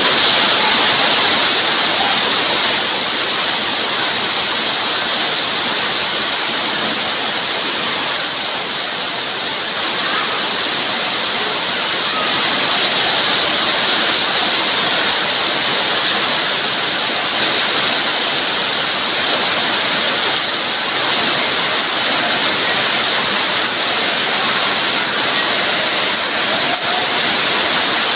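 Heavy rain pouring steadily, a dense even hiss with no let-up.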